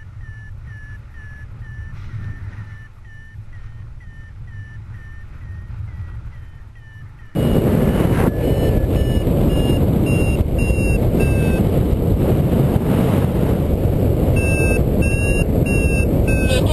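Paragliding variometer beeping in short chirps about twice a second, the tone it gives while climbing in lift. From about seven seconds in, loud wind rush over the microphone sets in and the beeps continue at a higher pitch, the sign of a stronger climb.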